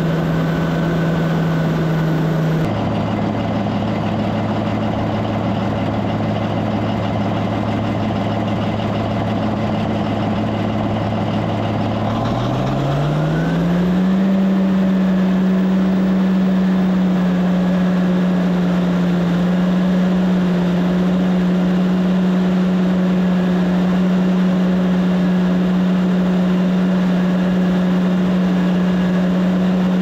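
Caterpillar D9G bulldozer's turbocharged diesel engine running: it drops to a low idle about three seconds in, then revs up smoothly near the middle and holds a steady higher speed, with a thin whine that rises with it. The engine is drawing hard enough through new air filters to push the restriction gauge into the red.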